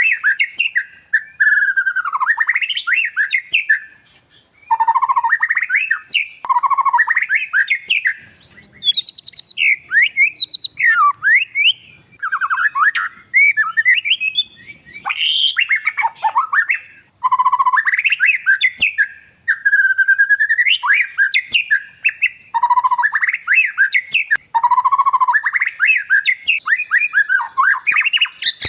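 Oriental magpie-robin (kacer) in full song: a long run of varied whistled phrases, sliding notes and quick trills with short breaks between phrases. A steady high hiss runs behind it.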